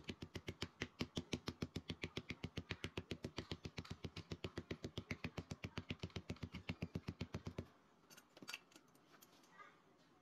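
A cobbler's hand hammer beating rapidly and evenly on a black sole sheet with a tan backing, about six or seven blows a second, pressing the layers flat. The blows stop about three-quarters of the way through, followed by a few light knocks.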